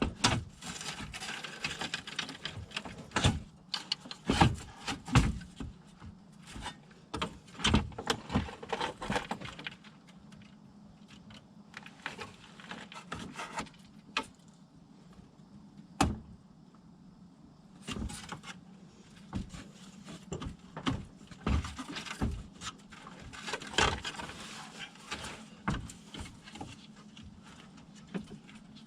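Hands-on clatter of a car radiator being worked into place: irregular knocks, clicks and scraping of plastic and metal parts, with a quieter stretch in the middle, over a steady low hum.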